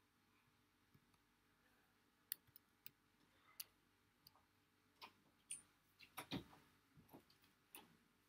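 Near silence: faint room tone with a handful of soft, scattered clicks.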